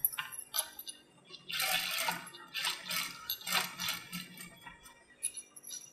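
Sewing machine stitching through blouse fabric in several short runs of about half a second each, with stops and light clicks between them.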